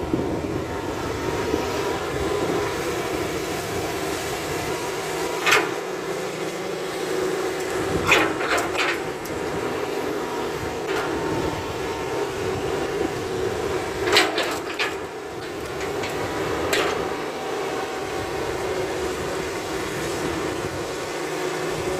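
Hitachi crawler excavator's diesel engine running steadily as it digs into a dirt bank, with several sharp knocks from the bucket and its linkage.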